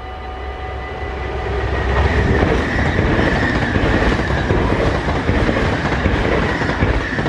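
NS VIRM double-deck electric intercity train passing at speed, its wheels clattering over the rails in a loud rush that builds about two seconds in and eases near the end. The level crossing's warning bells keep ringing steadily underneath.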